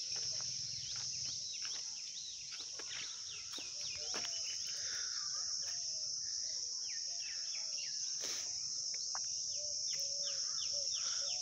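Several small birds chirping and calling in morning birdsong, over a steady high-pitched insect drone.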